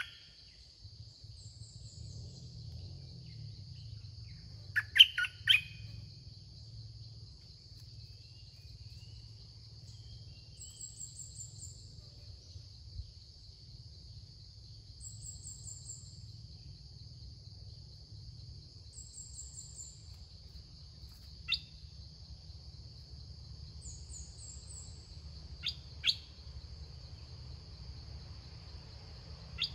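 Red-whiskered bulbuls calling in short, sharp notes, loudest in a quick burst of three about five seconds in and again in single notes later on. They sound over a steady high insect drone, with a thin high chirp repeating every few seconds.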